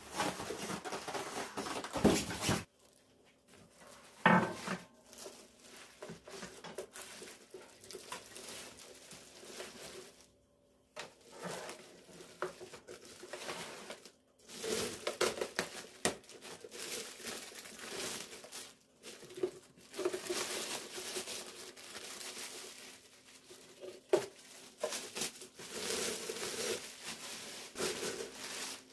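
Crinkling and rustling of things being handled, broken by a few sharp knocks, the loudest about two and four seconds in.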